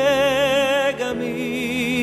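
Song: a singer holds a high note with wide vibrato over steady accompaniment, then drops to a lower held note about a second in.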